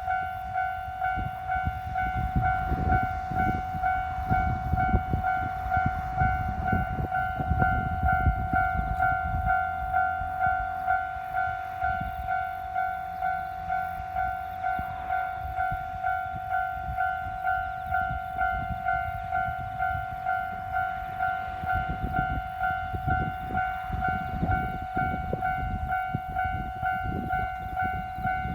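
Japanese railway level-crossing warning bell ringing steadily, a two-tone electronic ding at about two strokes a second, while a train rumbles and clatters past over the crossing.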